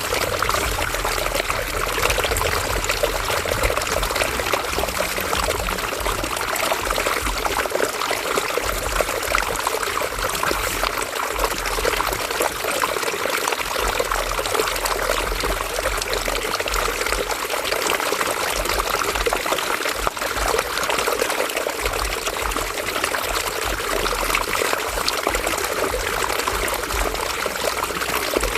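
River water flowing and splashing steadily over rocks, a continuous bubbling, trickling rush.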